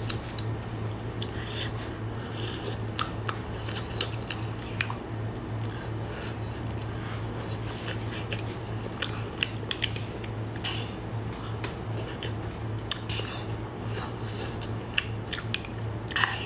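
Close-miked eating of soft hot-pot food: chewing and mouth sounds, with many short sharp clicks of wooden chopsticks against a clear bowl, over a steady low hum.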